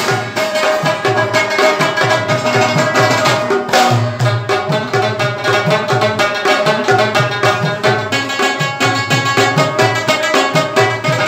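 A rubab being plucked in a fast, rhythmic instrumental melody, its ringing notes and sympathetic strings over a recurring low pulse.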